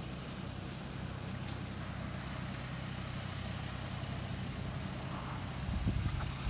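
A vehicle engine running steadily, a low even drone, briefly louder near the end.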